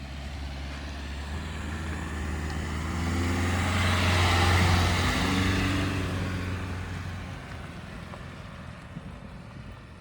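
Dacia Duster's 1.5 dCi diesel engine and tyres as the car drives past, growing louder to a peak about halfway and then fading away.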